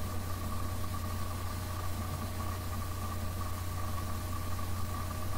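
A steady low mechanical hum, like an engine idling, that holds unchanged throughout with a thin steady tone above it.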